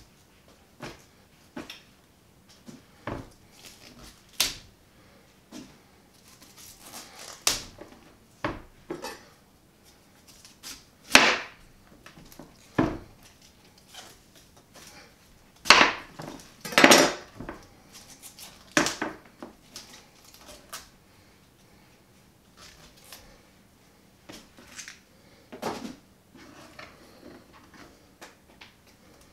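Kitchen knife cutting a head of cauliflower on a plastic cutting board: irregular knocks and crunches of the blade through the florets and onto the board, with a few louder strikes near the middle.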